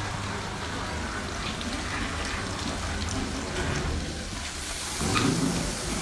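Automatic carpet washing machine running: a steady hiss of water spraying and splashing onto the carpet over a low, even machine hum, growing a little louder about five seconds in.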